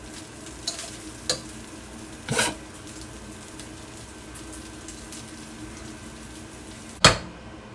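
Butter and turmeric sizzling gently in a pot on the stove, with a few light clinks and scrapes as rice and filling are spooned in. A single sharp knock comes near the end.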